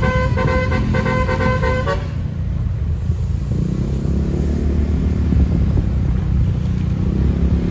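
Bus telolet melody horn (basuri) playing a quick tune of stepping notes that cuts off about two seconds in. After that the bus engine runs with a low rumble.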